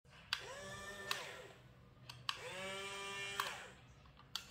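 Electric motors of a Huina remote-control toy excavator running twice as its arm is worked. Each time a sharp click is followed by a whine that quickly rises to a steady pitch, holds for about a second, then winds down with another click.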